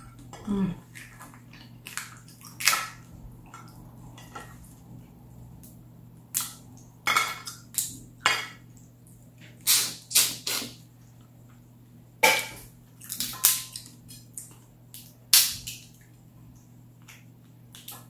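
Cooked crawfish shells cracked, snapped and pulled apart by hand, about a dozen sharp cracks spread irregularly, with wet sucking and smacking as the meat and juices are eaten from the shell.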